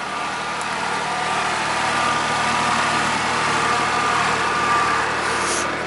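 Kubota tractor's diesel engine running steadily as it pushes debris, with a thin high whine that grows stronger in the middle.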